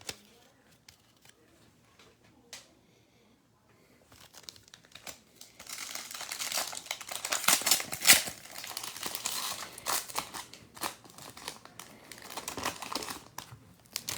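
Foil trading-card pack wrapper crinkling and being torn open, with sharp crackles. A few small clicks come first, then about four seconds in a long stretch of dense crinkling begins.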